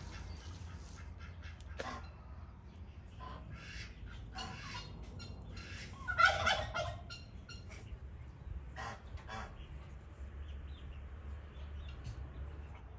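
Domestic fowl calling, with one louder call about six seconds in among fainter, scattered short calls.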